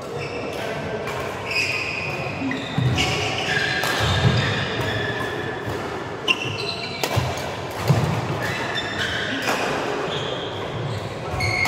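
Badminton rackets hitting a shuttlecock in a doubles rally, a string of sharp hits, most of them between about three and eight seconds in, with short high squeaks from shoes on the court floor. Other games are being played on the neighbouring courts.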